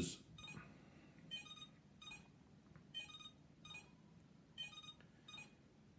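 iLife V5 robot vacuum cleaner beeping faintly in short electronic beeps, about two a second, while plugged in to charge. The beeping is a charging fault: the owner says something is wrong with it, though it still charges.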